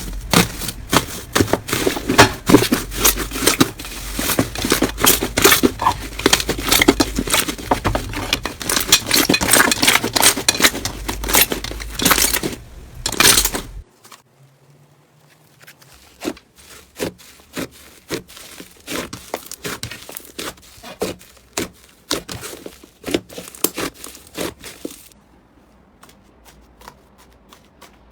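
Crunchy slime being squeezed and worked by hand: dense crackling and popping for about the first half. It then drops suddenly to quieter, sparser clicks and pops.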